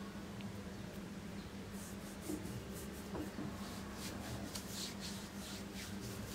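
A palm and fingers rubbing body lotion mixed with foundation cream into the skin of an upper arm: a run of soft, uneven swishing strokes starting about two seconds in, over a low steady hum.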